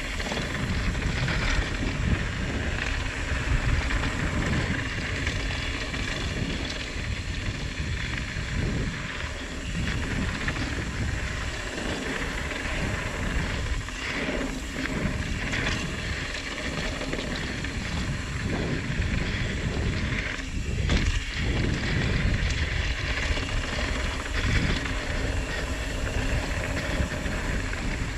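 Mountain bike descending a downhill dirt trail: wind buffeting the microphone as a steady, swelling rumble, with the hiss of tyres on dirt and occasional knocks as the bike goes over bumps.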